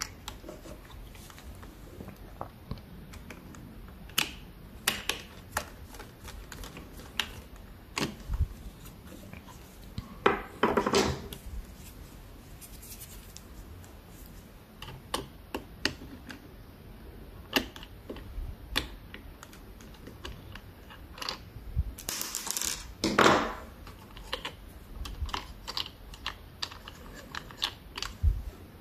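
Small parts and tools being handled at a workbench: irregular light clicks and taps, with two short scraping sounds about ten seconds and twenty-two seconds in, the second the louder.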